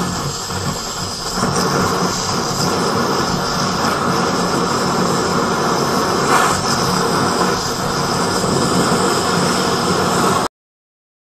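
Two handheld gas torches burning with a steady hiss as they blast flame into a crucible, heating scrap aluminium cans toward melting. The sound cuts off suddenly to silence about ten and a half seconds in.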